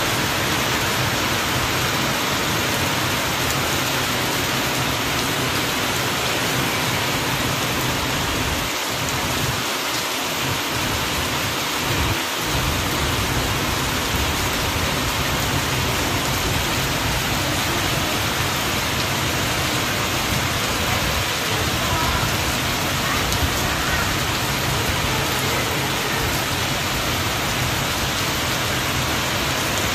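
Added rain sound effect in place of the storm's real audio: a steady, even hiss of heavy downpour that holds at one level throughout.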